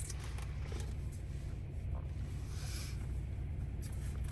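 Low, steady rumble of a Ram pickup's Hemi V8 and drivetrain heard from inside the cab, with a few faint ticks.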